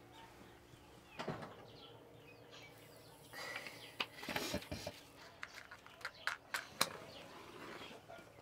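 Faint clicks, taps and short scrapes as a matchbox is handled and a match is struck to light a clay jiko cookstove. The loudest cluster of clicks comes about four to five seconds in.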